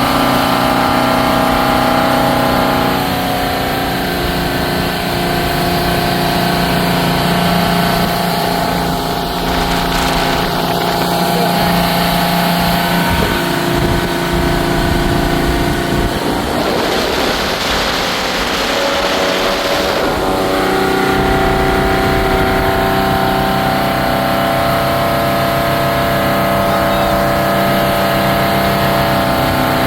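Inboard Chrysler Crown M47-S flathead straight-six marine engine running steadily with the boat under way, its freshly overhauled engine running smoothly. A rush of noise swells for about three seconds past the middle, and the engine note shifts slightly twice.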